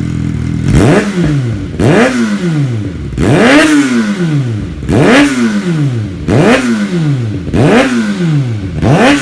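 Kawasaki ZX-6R inline-four sport-bike engine, its stock exhaust pipe removed, idling and then blipped seven times in quick succession, the revs rising and falling sharply each time.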